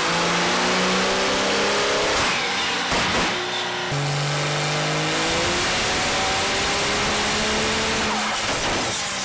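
Compound-turbocharged Cummins 5.9 common-rail inline-six diesel in a Dodge Ram pickup running hard on a chassis dyno, its note rising steadily through the pulls. The sound cuts abruptly to a new pull about two and four seconds in.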